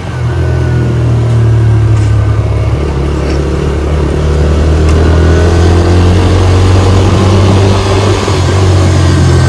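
Motor vehicle under way on the road: a loud, steady low rumble of engine and road noise.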